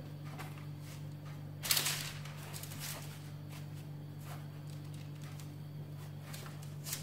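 Hands pressing and adjusting soft yeast dough on a parchment-lined baking tray, with a short rustle of the baking paper about two seconds in and a faint click near the end, over a steady low hum.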